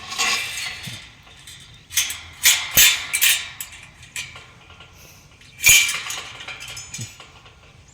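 A series of sharp clinks and knocks, about seven, irregularly spaced, the loudest about two and a half seconds in and again near six seconds.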